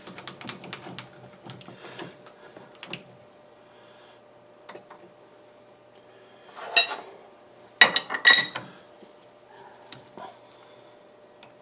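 Metal clicks and clinks from a stopped metal lathe as the carriage and tool post are moved up to the workpiece. There are two louder metallic clatters, with a ring to them, about seven and eight seconds in.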